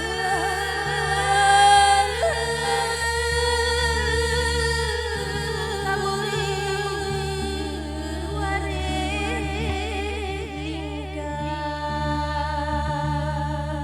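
Several voices singing long, held melodic lines with wavering ornaments and vibrato, over a steady low drone.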